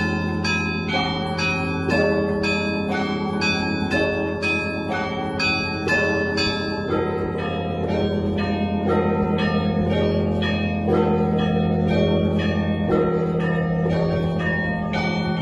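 Russian Orthodox church bell ringing: small bells struck in quick, continuous patterns over the sustained low hum of the large bells.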